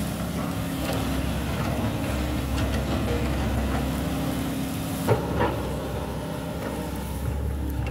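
SANY hydraulic excavator's diesel engine running steadily while it works its boom and bucket. Two sharp knocks about five seconds in.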